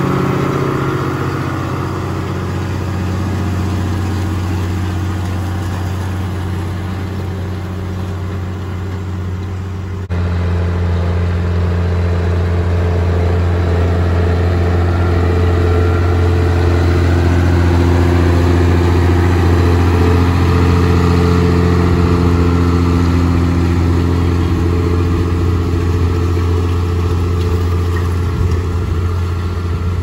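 New Holland 8970A tractor's six-cylinder turbo diesel running steadily under load, pulling a six-furrow semi-mounted plough through the soil. A steady low engine drone that steps up louder about ten seconds in.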